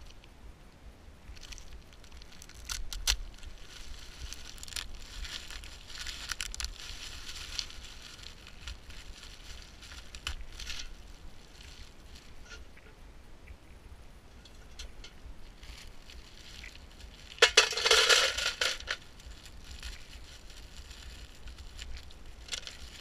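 Crinkling plastic of ice-cube bags being handled and twisted, with ice cubes cracking and clattering as they are pushed out into a plastic bucket. There are scattered clicks and rustling, and a loud crackling burst lasting about a second and a half about three-quarters of the way through.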